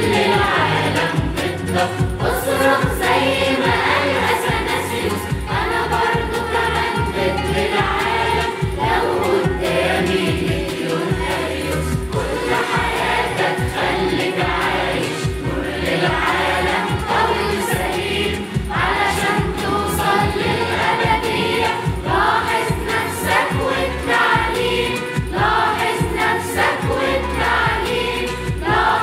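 Children's choir singing the festival theme song in English over a backing track with a steady beat.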